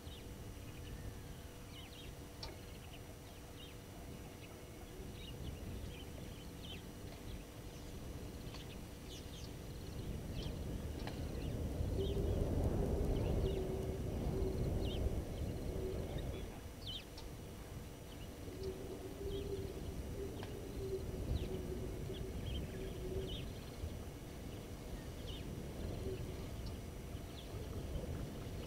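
Birds calling in short, scattered chirps throughout, over a low rumbling background noise that swells about halfway through. A faint wavering hum comes and goes in the middle.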